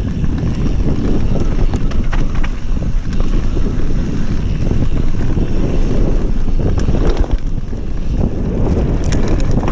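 Wind buffeting the camera microphone on a fast mountain-bike descent, with tyre rumble over the dirt trail and scattered clicks and knocks from the bike over bumps, a cluster of them near the end.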